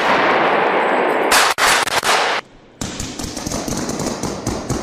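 Rifle gunfire in an enclosed concrete room: rapid, overlapping shots that ring off the walls into one loud wash. After a short break about two and a half seconds in, it goes on as a fast run of lighter, sharp cracks.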